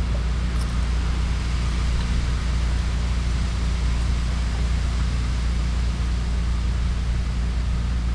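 Boat motor running steadily: a low, even hum with no change in speed.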